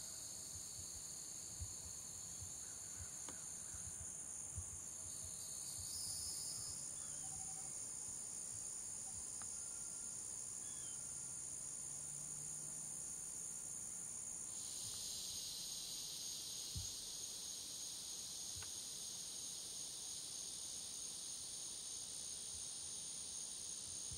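Steady chorus of insects shrilling in several high, unbroken bands; a second, lower shrill voice joins about halfway through. A few faint knocks are heard now and then.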